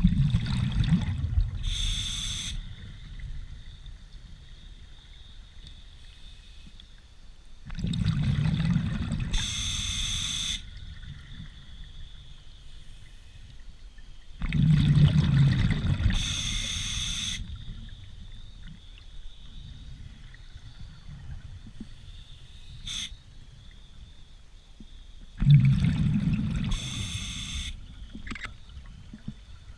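Scuba diver breathing underwater through an open-circuit regulator: four breaths, each a burst of exhaled bubbles bubbling and gurgling with a short hiss from the regulator. The breaths come at a slow, even pace, 6 to 11 seconds apart.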